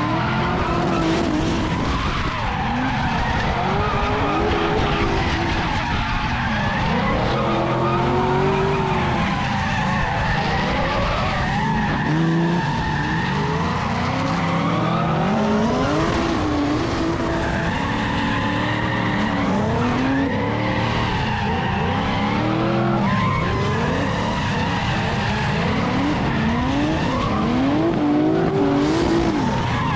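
Drift cars sliding in tandem: engines revving up and down again and again over a continuous noise of skidding, screeching tyres.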